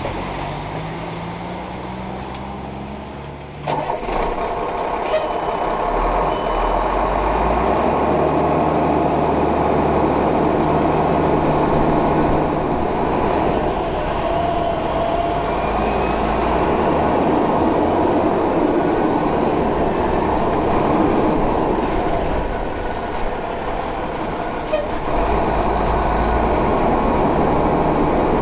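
Truck engine running, its pitch rising over the first few seconds; at about four seconds in a louder, steady rushing noise sets in and holds.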